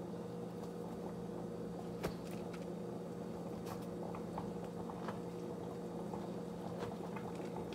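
Faint scraping and a few light clicks of a spoon digging out the soft inside of a sourdough bread boule, over a steady low electrical hum.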